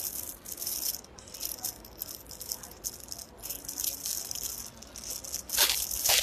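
Plastic rattling and rustling as a hair trimmer and its parts are handled, with a louder burst of rustling near the end.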